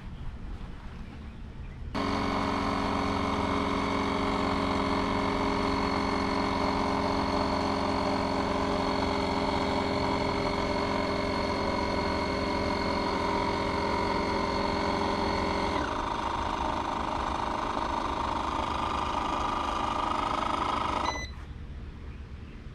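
A motor running steadily for about twenty seconds. It starts suddenly about two seconds in, its lower tones drop out near sixteen seconds, and it cuts off suddenly near the end.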